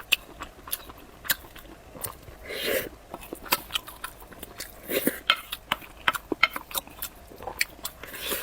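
Close-up eating sounds: chewing and biting, with many sharp wet mouth clicks and smacks, and two longer, fuller sounds about two and a half and five seconds in.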